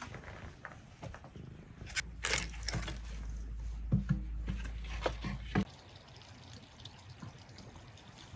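Firewood being split with an axe: a sharp split about two seconds in, then several lighter wooden knocks as the split pieces fall and are handled, over a low rumble that stops after about five and a half seconds.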